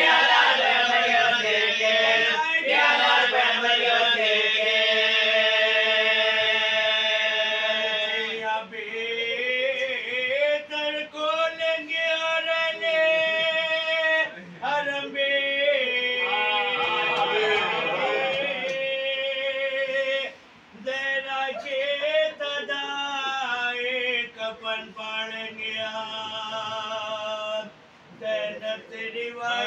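A man chanting a noha (mourning lament) unaccompanied, holding long, wavering notes with short breaks for breath.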